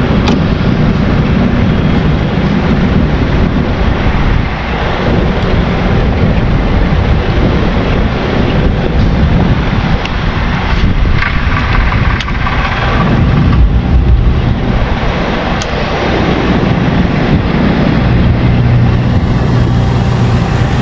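Outboard motor of a small fishing boat running steadily, a loud low rumble with rushing wind and water noise over the microphone.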